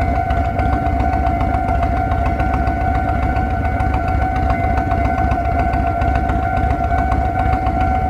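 Japanese railway level-crossing alarm bell ringing in its standard tone, a steady pitched ding repeating rapidly and evenly while the crossing is closed for an approaching train. A constant low rumble runs underneath.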